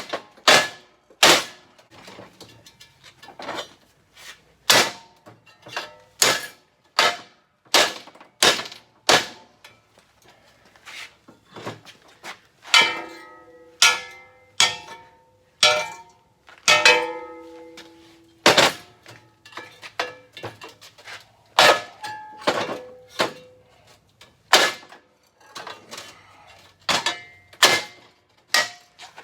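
Repeated hammer blows on steel, sharp strikes at an uneven pace of about one a second, several leaving a brief metallic ring.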